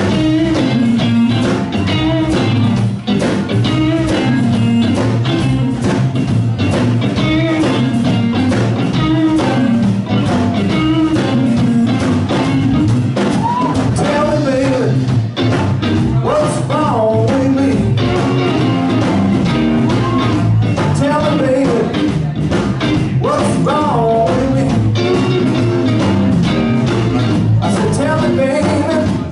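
Live electric blues band playing: electric guitar, bass guitar and drum kit keep a steady groove, with a lead melody line that bends up and down in pitch from about halfway through.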